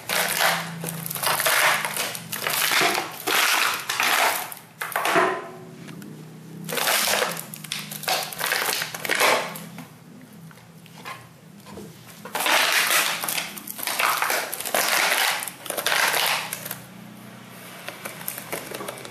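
Siberian husky chewing an empty plastic drink bottle, the bottle crackling and crunching as it is crushed in the dog's jaws. The crunching comes in spells with short quieter pauses between them.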